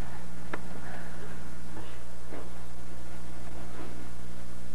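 Steady low electrical hum, with a few faint, irregular footsteps on a hard floor.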